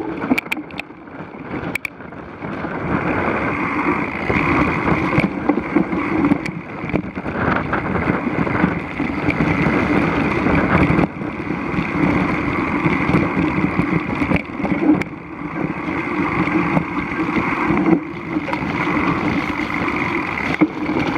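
Mountain bike riding along a rough, wet grass-and-dirt trail, heard from a bike-mounted action camera: steady wind rushing over the microphone mixed with tyre rolling noise and frame rattle, with a few sharp clicks in the first two seconds.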